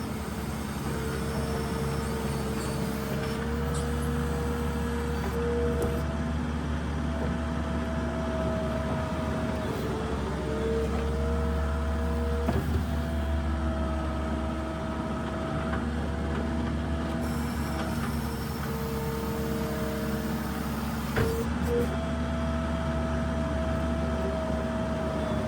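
New Holland LS170 skid steer's diesel engine running steadily under load, with a whine that switches between two pitches and comes and goes every few seconds as the machine pushes snow. Two sharp knocks, about halfway and about four-fifths of the way in.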